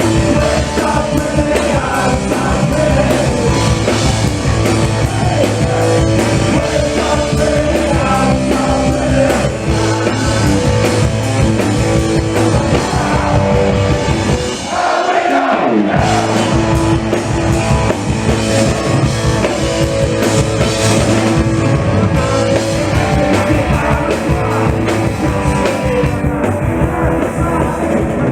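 Punk rock band playing live: distorted electric guitars, bass and drums with shouted singing. About halfway through, the bass and drums drop out for about a second before the band comes back in.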